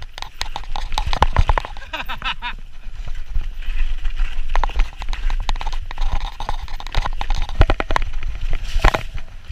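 Orbea Rallon full-suspension mountain bike ridden fast down a dirt trail: tyres rumbling over the ground, with rapid rattles and knocks from the bike over bumps.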